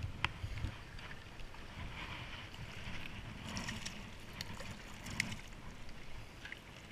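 Wind buffeting the microphone over small waves washing on the shore, with a few light clicks and knocks scattered through.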